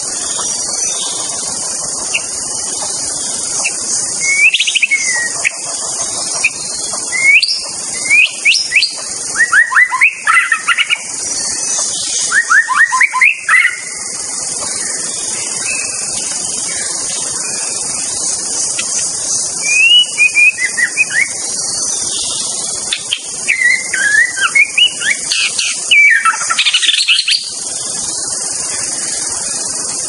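White-rumped shama (murai batu) singing bouts of quick rising and falling notes, with a pause in the middle, over a steady high hiss.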